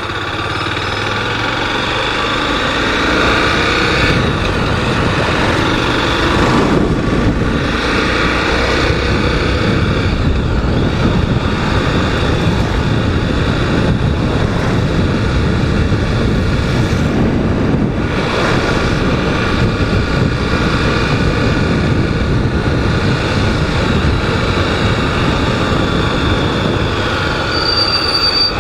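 Honda Twister motorcycle's single-cylinder engine running under way, its note rising and falling as the rider speeds up and eases off, over steady road and wind noise.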